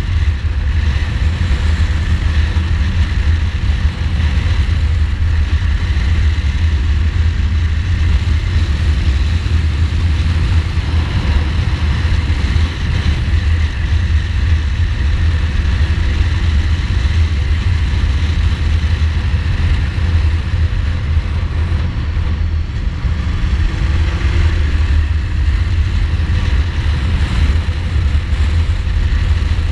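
Ducati Multistrada's twin-cylinder engine running at steady cruising speed, mixed with a heavy low wind rumble on the camera microphone.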